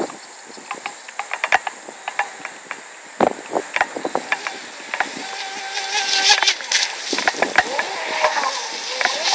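Brushless electric RC speedboat running on the water, its motor whine growing louder in the second half as it comes close, with the pitch gliding up and down as it turns. Under it, a steady high insect drone and scattered sharp clicks.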